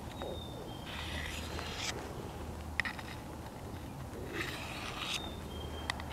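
A Mora knife's steel blade drawn freehand along the fine diamond plate of a Work Sharp Guided Field Sharpener: two slow, soft scraping strokes, each followed by a sharp click.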